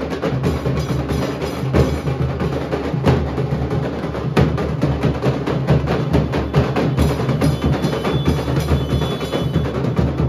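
A Nashik dhol troupe playing: many large barrel dhol drums beaten with sticks in a fast, loud, continuous rhythm. Deep booming strokes run together with sharp cracking stick hits.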